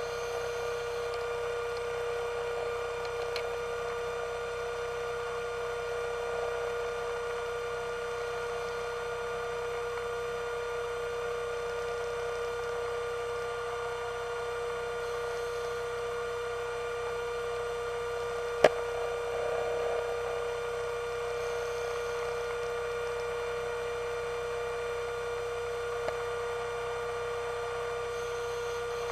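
Steady underwater hum of a diver propulsion vehicle's electric motor, one held tone with overtones. A single sharp click comes about two-thirds of the way through.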